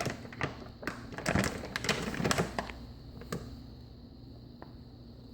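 A quick, irregular run of light taps and knocks, densest between about one and three seconds in, with one last tap about three and a half seconds in.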